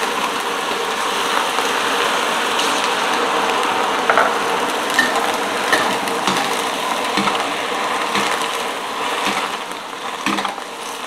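Sliced sponge gourd hissing and sizzling in a hot wok, the water just poured in along the wok's edge turning to steam, while a metal spatula scrapes and clicks against the wok as the slices are stir-fried. The hiss eases a little near the end.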